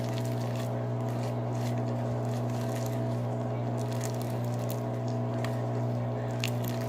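Slime being kneaded and mixed by hand, with soft squishing and small irregular clicks and crackles, over a steady low hum.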